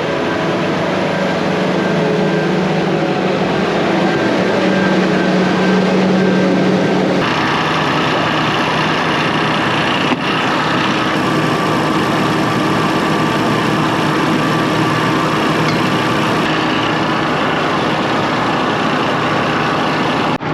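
A vehicle engine running steadily. The sound changes character about 7 seconds in and again at about 10 seconds, with a brief dip.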